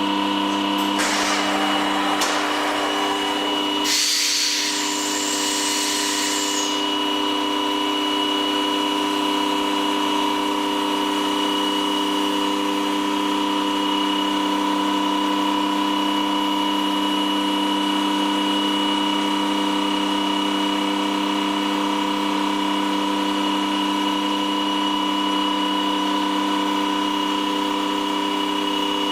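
CNC machine spindle running with a steady multi-tone whine while a woodworking cutter machines wood. There are two stretches of rougher, hissing cutting noise in the first several seconds, then the steady whine carries on alone.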